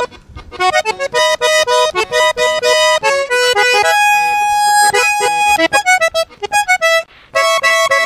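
Hohner button accordion played solo in vallenato style: quick runs of bright notes with a chord held for about a second near the middle, and a brief pause near the end.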